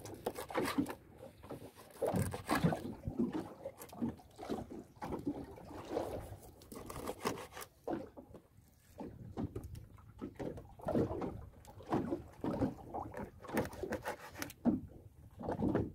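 Two knives chopping small fish into bait on wooden cutting boards: a run of irregular knocks as the blades cut through onto the boards.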